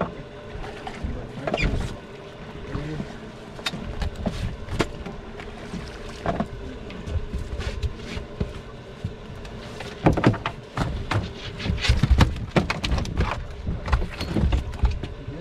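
Wind rumbling on the microphone with irregular knocks and thumps from people and gear moving about a small fishing boat; the knocks come thickest and loudest about ten to thirteen seconds in.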